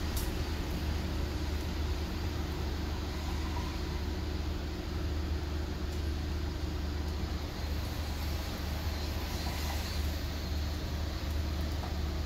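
A steady low mechanical hum with an even background noise, unchanging throughout.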